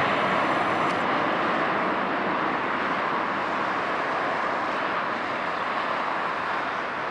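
Jet noise of an Airbus A330-302's two General Electric CF6-80E1 turbofans as the airliner flies away on low final approach, a steady rushing sound slowly fading.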